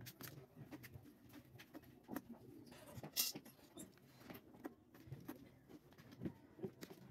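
Faint, irregular little clicks, taps and scrapes of a small knife and fingers peeling garlic cloves on a plastic cutting board, with a brief louder scrape about three seconds in.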